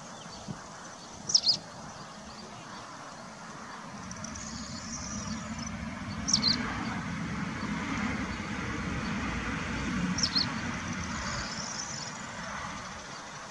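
A bird gives a short, sharp high call three times, about every four seconds, with a softer warble between, over a low rumble that swells from about four seconds in and fades near the end.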